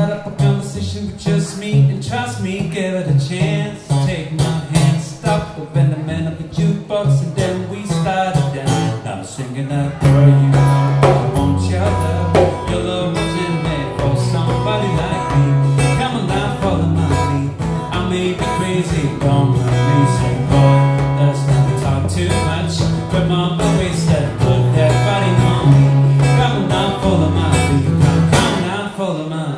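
Acoustic guitar strummed live with a djembe-type hand drum keeping the beat, in an instrumental passage. The music gets fuller and louder, with a deeper low end, about ten seconds in.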